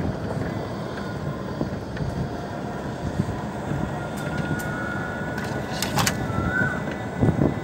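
Steady rumble and road noise of a small open vehicle rolling over interlocking brick paving, with a few sharp clicks a little before six seconds in.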